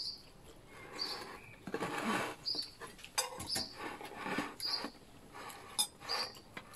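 Close-by chewing and crunching of food in stretches, while a bird gives a short high chirp over and over, about once a second.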